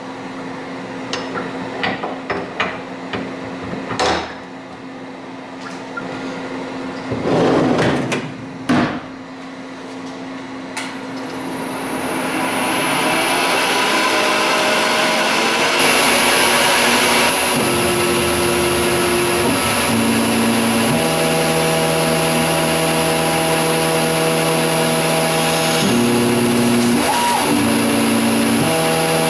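A steel tool holder with a boring bar is clicked and knocked onto the quick-change tool post of a Grizzly G0602 CNC-converted metal lathe. Then the lathe starts: a high steady whine, a loud hiss of spindle and coolant spray, and the axis stepper motors humming in steady tones that jump in pitch in steps as the carriage moves into position.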